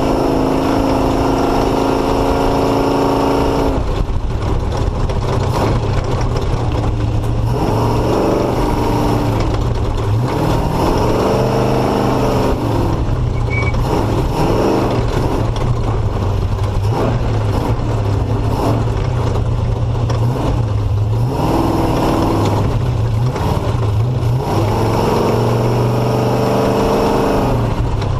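Off-road motorcycle engine running while riding, its revs climbing and easing off again and again over a constant low rumble and rushing noise.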